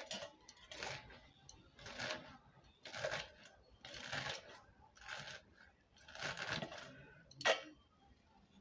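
Red amaranth stalks being sliced against a bonti, a curved blade fixed upright on a floor base, with a crisp cutting stroke about once a second. A sharper snap about seven and a half seconds in is the loudest.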